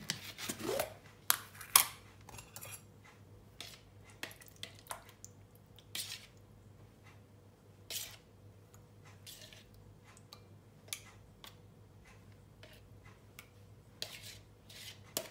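A spoon scraping and tapping inside a plastic yoghurt tub and against a ceramic bowl as yoghurt is scooped out: a run of short clicks and scrapes, busiest in the first two seconds, then sparser.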